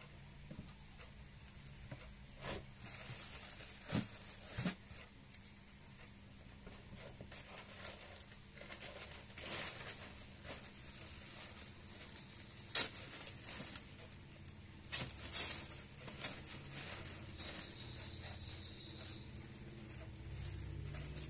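Clear plastic packaging and T-shirt fabric being handled: scattered crinkles and rustles of the plastic bags, with a few sharp crackles, the sharpest a little past halfway, over a low steady hum.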